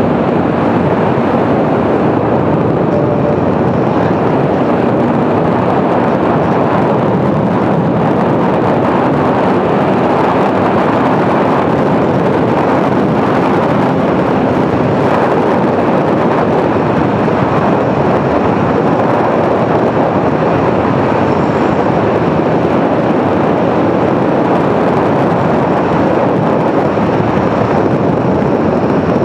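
2021 Aprilia Tuono V4 1100 motorcycle at speed: steady wind rush over the microphone with the V4 engine running under it, holding a steady pace with no big revs or shifts.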